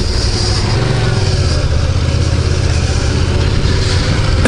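Yamaha MT-07 (2018 model) 689 cc parallel-twin engine running as the bike is ridden on the road, a steady low engine note.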